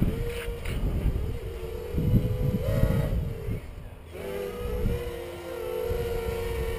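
Peon230 quadcopter's brushless motors and propellers buzzing in flight, the pitch stepping up and down as the throttle changes. Bursts of low rumble come and go under the buzz.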